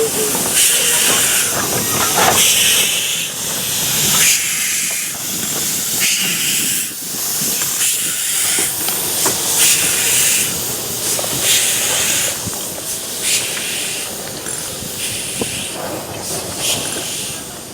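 Steam locomotive hissing steam in repeated bursts about once a second, the hiss a little quieter toward the end.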